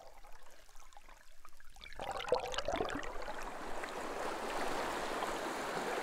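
Creek water rushing over rocks, heard underwater through a hydrophone: faint ticking and bubbling at first, then a dense, steady fizzing rush that sets in about two seconds in.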